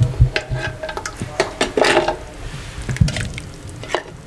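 Steel ladle knocking and scraping against the inside of a clay pot while mutton gravy is scooped out, with several sharp clicks and a short splash of liquid about two seconds in.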